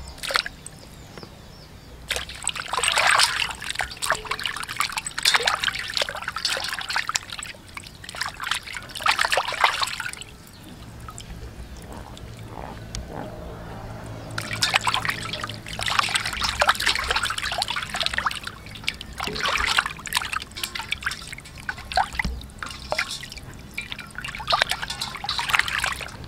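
Water sloshing and splashing in a stainless steel basin as hands rub and wash raw pig tails, in two long busy spells with a quieter pause in the middle.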